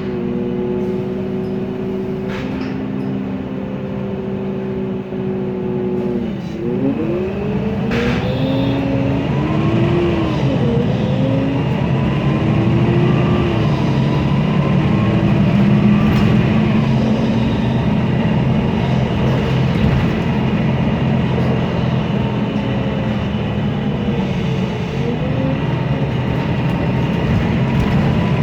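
MAN Lion's City CNG city bus with its MAN E2876 natural-gas inline-six engine and ZF Ecolife six-speed automatic gearbox. The engine runs steadily, then pulls away, its pitch climbing and dropping back several times as the gearbox shifts up. There are two short hisses, about two and a half and eight seconds in.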